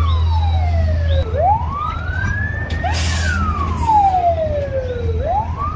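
Emergency vehicle siren wailing, slowly rising and falling in pitch about once every four seconds, over a steady low engine hum. A short hiss comes about three seconds in.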